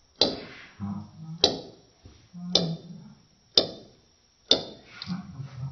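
A ball bouncing on a hard tabletop: five sharp clicks, one per bounce, coming a little closer together each time as the bounces lose height.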